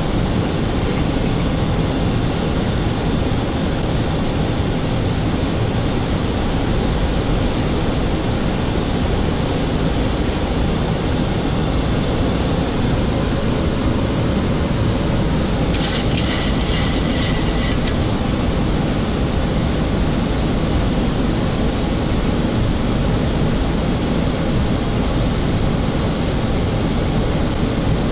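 Steady rushing airflow and air-conditioning noise on the flight deck of a Boeing 737-800 in flight. A brief, pulsing high electronic tone sounds for about two seconds a little past the middle.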